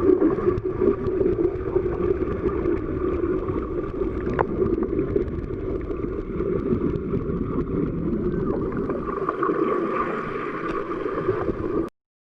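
Underwater ambience: a steady, loud rush of water noise that stops abruptly near the end.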